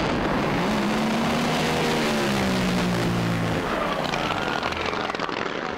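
Racing drag boats' engines running flat out during a run, a loud continuous noise with the engine note falling slightly in pitch as a boat passes.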